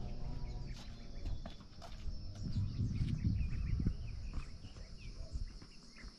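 Rural outdoor ambience: small birds chirping over a steady high insect drone, with a low rumble swelling in the middle.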